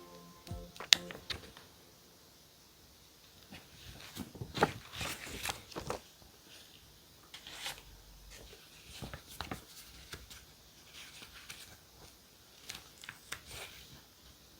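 Paper and stationery being handled: a sharp click about a second in, then bursts of paper rustling and crinkling with scattered light taps and clicks.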